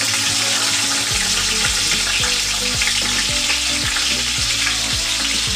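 Green chillies and whole spices sizzling steadily in hot oil in a stainless steel pot.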